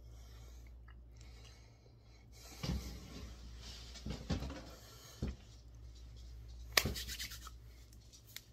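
Rubbing and a few short knocks close to the microphone, the loudest near the end, over a steady low hum.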